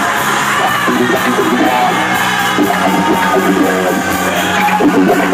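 Loud live band music on a venue PA, with vocals over guitar, heard from the crowd, and some crowd noise mixed in.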